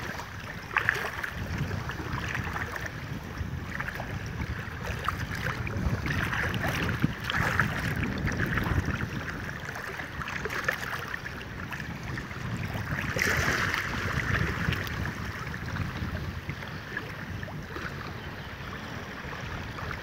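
Legs wading through knee-deep water, sloshing and splashing with each stride, with wind buffeting the microphone.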